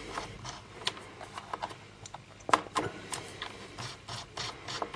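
A small screwdriver turning a small screw out of a netbook's plastic memory-bay cover: irregular light clicks and scraping, with one sharper click about two and a half seconds in.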